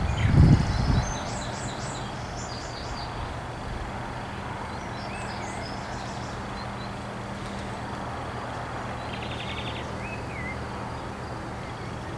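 Small birds chirping, with a rapid trill near the end, over a steady low hum. A brief, louder low rumble comes in the first second.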